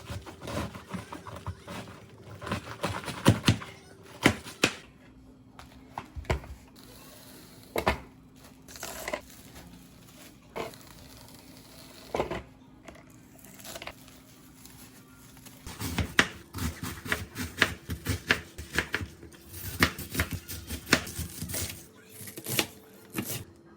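Kitchen handling sounds during food preparation: packaging rustling and crinkling with irregular light clicks and knocks, which come thick and fast for several seconds towards the end.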